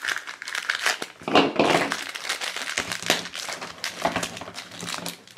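Hard plastic crackling, creaking and clicking as a snap-together plastic Minions Mineez Fart Blaster Pack capsule is twisted and pried open by hand, with irregular sharp clicks throughout.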